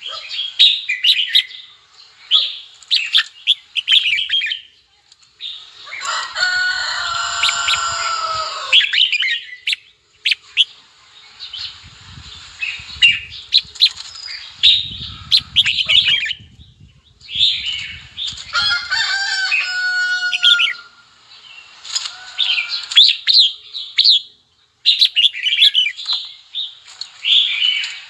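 Red-whiskered bulbuls singing and calling in quick, bright chirping phrases. Two longer, fuller calls come at about a quarter and two-thirds of the way through. Low fluttering thumps are heard in the middle.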